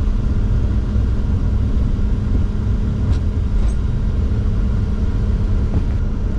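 Steady low rumble with a constant hum inside the cockpit of a Bombardier Challenger 604 as it rolls out along the runway after landing, its engines at idle with thrust reversers stowed.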